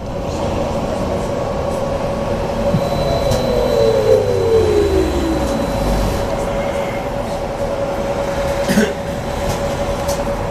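BKM 43300D trolleybus heard from inside while moving: steady low road rumble under a constant electric whine. Around the middle, a second whine glides down in pitch over about three seconds as the electric drive slows, and there is a single clunk near the end.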